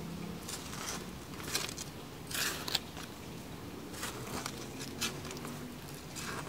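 Hand trowel digging into loose garden soil: a run of short, gritty crunching scrapes, the loudest a little over two seconds in.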